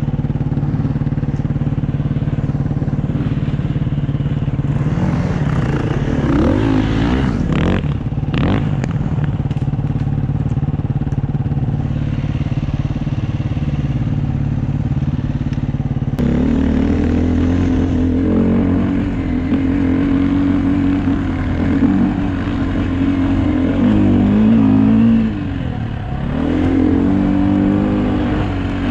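Dirt bike engine running under way, its revs rising and falling. About two-thirds of the way through, the engine note jumps up suddenly and stays higher.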